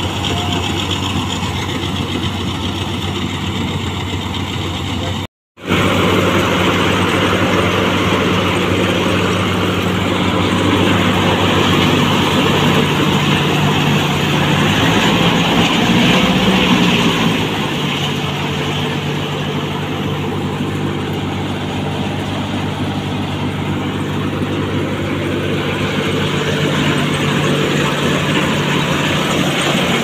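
Sonalika 60 DI tractor's diesel engine running steadily under load, driving a Vikas mini combine harvester's belts, pulleys and threshing drum as it threshes rice. The sound cuts out for a moment about five seconds in and swells slightly for a few seconds in the middle.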